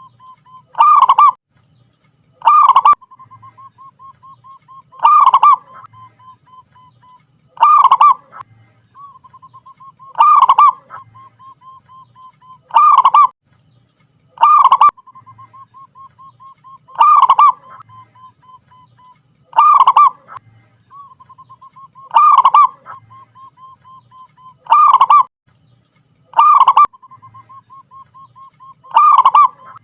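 Zebra dove (perkutut) in full, frequent song: a loud ringing coo repeated about every two and a half seconds, with a soft, rapid trill of notes at the same pitch between the coos.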